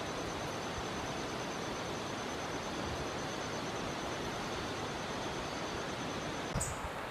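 Steady, even hiss with a faint, high, rapidly pulsing tone over it. Both break off about six and a half seconds in, where the sound changes abruptly.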